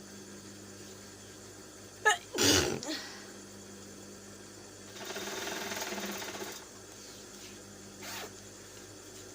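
A person sneezes once, sharply and loudly, about two seconds in. A little later comes a longer blast of air through the nose, lasting about a second and a half, as in nose blowing.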